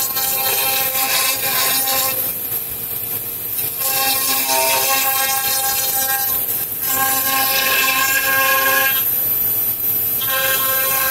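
5-axis CNC milling machine's spindle and long end mill cutting Japanese cedar: a steady whine with several pitches over a hiss, dropping away and coming back every two to three seconds.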